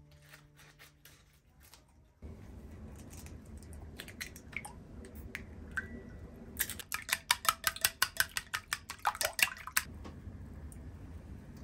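Scissors snipping a sheet of nori, faint. Then eggs are cracked into a small bowl and beaten, a quick run of clicks against the bowl at about six strokes a second for some three seconds, over a low steady hum.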